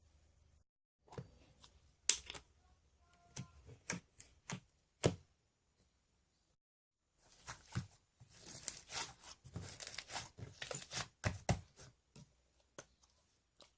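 Slime being squeezed and stretched by hand, giving irregular sticky crackles, clicks and pops, thickest in a burst near the end.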